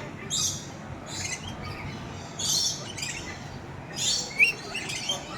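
Red lory giving several short, harsh, screechy calls spaced roughly a second apart, with a brief clear whistled note near the end, the loudest sound here.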